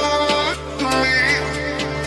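Background music with a steady beat, a sustained bass and a melody line.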